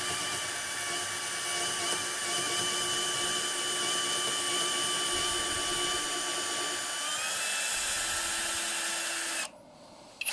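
Topshak TS-ED5 20V brushless cordless drill boring through wood at low speed in plain, non-hammer drill mode. It gives a steady motor whine whose pitch rises slightly about seven seconds in, then stops about a second before the end.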